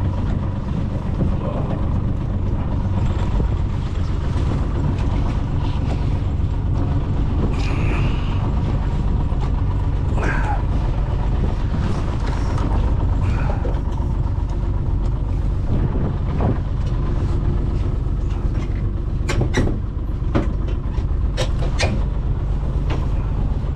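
A small boat's outboard motor running steadily at low speed. Near the end come a few sharp knocks as the boat comes against a wooden pier.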